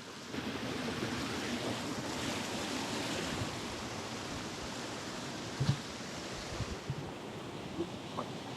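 Steady rush of a flowing river, with a few soft low thumps in the second half.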